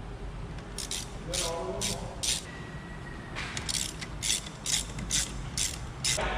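Hand ratchet with an inverted Torx socket clicking in short strokes as it backs out the front hub bearing assembly's rusty mounting bolts, with a brief squeak about one and a half seconds in.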